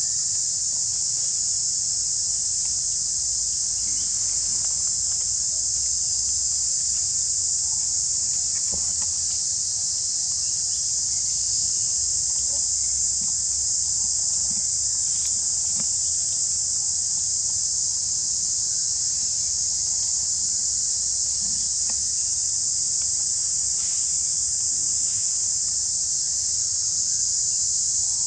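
Steady, high-pitched insect chorus, one continuous shrill buzz that doesn't change, with a few faint clicks now and then.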